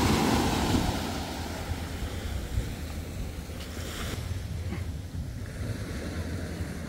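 Steady wash of sea water along the shore, with wind buffeting the microphone. It is loudest at the start and eases a little.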